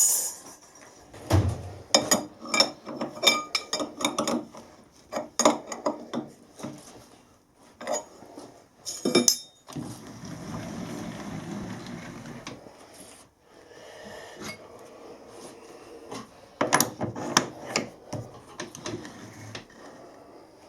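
Metal clinks and knocks of tools and a steel bolt being handled and set up at a metal lathe, in irregular clusters, with a few seconds of steady machine noise about ten seconds in.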